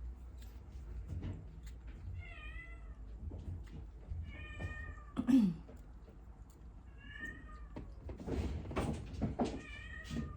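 Kittens mewing, four short high-pitched mews a few seconds apart. A brief, loud, low sound falling in pitch comes about five seconds in, and rustling, handling noise follows near the end.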